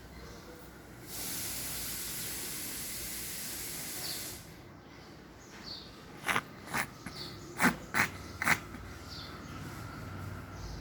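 Cat coughing: a run of about five short, sharp hacks within about two seconds, the loudest sounds here. They come after a steady hiss lasting about three seconds.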